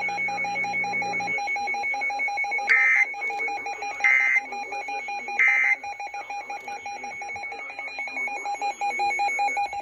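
Three short warbling digital data bursts of an Emergency Alert System end-of-message (SAME) code, about a second and a half apart, marking the close of the severe thunderstorm warning. A steady high electronic tone runs underneath.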